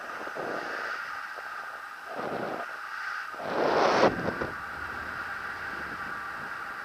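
Wind buffeting the microphone of a head-mounted camera in paraglider flight: a steady rushing hiss with gusts, the strongest about four seconds in.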